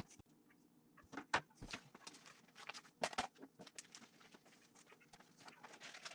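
Faint, scattered clicks and light taps at irregular intervals, a dozen or so short ticks.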